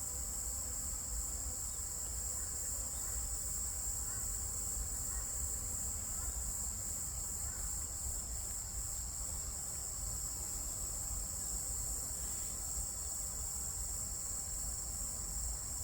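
Crickets chirring in a steady, continuous high-pitched trill, over a faint low rumble.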